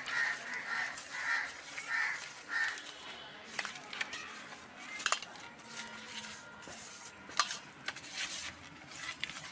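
Hands mixing boal fish steaks with salt and turmeric in a stainless steel bowl: soft handling noises, with a few sharp knocks of fish and fingers against the metal bowl in the second half.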